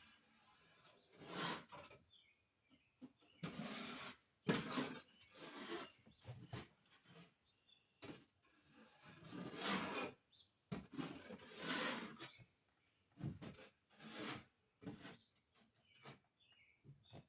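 Drywall knife spreading and scraping joint compound over a wall patch in repeated strokes, each about a second long. Faint bird chirps come in between.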